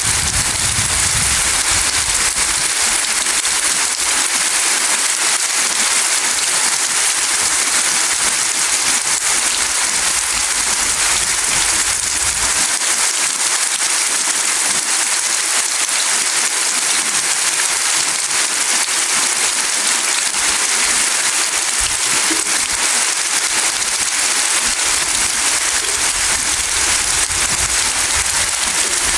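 Steady rain falling and pattering on surfaces, an even hiss with no let-up.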